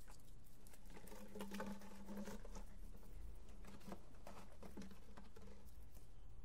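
Light pattering taps and scrapes of a puppy's paws and claws on concrete as it moves around a tortoise, with a faint low hum from about one to two and a half seconds in.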